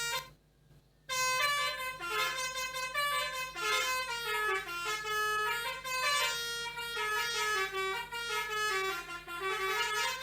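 Pianika (melodica) playing the telolet basuri bus-horn tune: a continuous run of held notes stepping up and down in pitch. It breaks off briefly just after the start and resumes about a second in.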